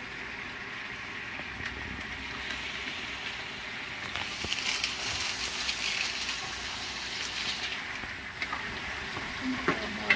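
Stir-fry sizzling in a frying pan, a steady hiss that turns into louder crackling from about four seconds in until about seven and a half seconds in, with a few small clicks near the end.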